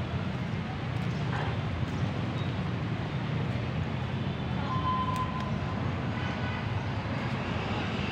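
Steady low rumble of outdoor background noise, with a brief faint high tone about five seconds in.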